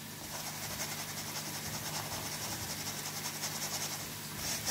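Gram flour (besan) being sifted by hand through a steel mesh sieve: a soft, steady scratchy hiss of flour rubbing through the mesh, a little louder near the end.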